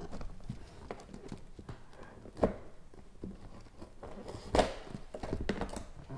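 A cardboard gift box being opened by hand on a table: a small cutter slitting its seal sticker, with light scrapes and taps and two sharper knocks about two and a half and four and a half seconds in.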